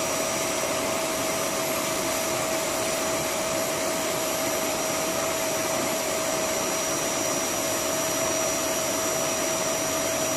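Vacuum cleaner running steadily with a constant whine, sucking dust out of the cooling fins of a split-system air conditioner's indoor unit.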